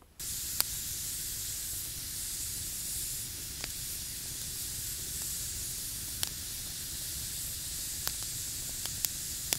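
Campfire burning with a steady hiss and sharp crackling pops every second or two.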